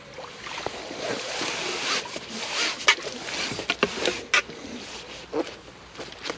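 Water splashing and running off a landing net as it is lifted out of the lake with a small carp and weed in it, followed by a few sharp clicks and knocks.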